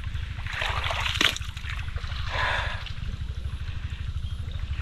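Water rushing and splashing through a freshly dug-out irrigation canal, its flow now stronger. A steady low rumble runs underneath, with two louder surges of rushing water, one about a second in and another near the middle.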